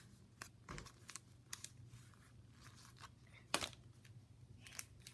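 Faint rustling and crinkling of a sticker package being handled and opened, in short scattered rustles and clicks, the sharpest about three and a half seconds in.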